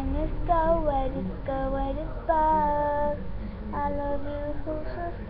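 A high-pitched voice singing in short phrases, with sliding pitch and one long held note partway through.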